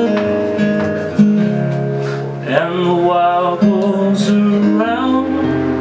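Acoustic guitar strumming held chords. A man's voice sings a line over it from about two and a half seconds in until about five seconds.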